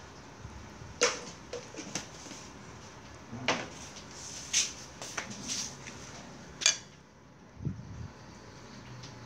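Dishes clinking while rice gruel is served: a metal ladle knocking against an aluminium pot and a ceramic bowl, about five sharp clinks spread over several seconds, then a duller knock near the end.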